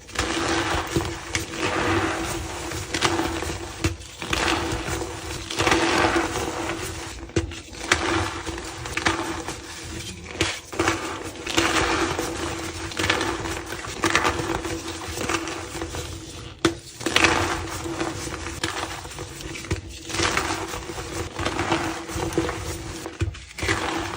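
Soft, squeaky reformed white gym chalk blocks being crushed, giving a run of crumbling crunches about once a second over a steady low hum.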